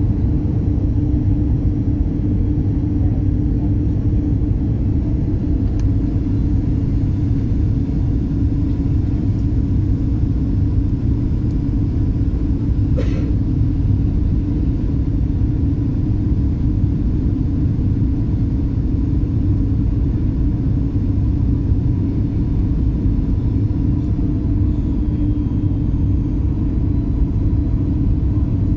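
Airliner cabin noise during the landing approach: a steady low rumble of jet engines and airflow, with a constant hum.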